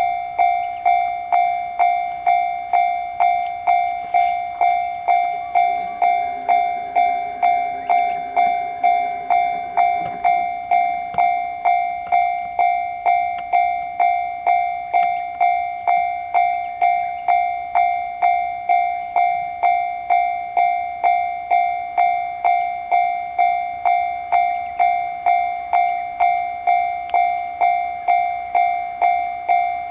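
Japanese railroad crossing warning bell ringing its 'kan-kan' alarm: one bright ringing strike repeated evenly, just under twice a second. A fainter low hum comes and goes for a few seconds in the first third.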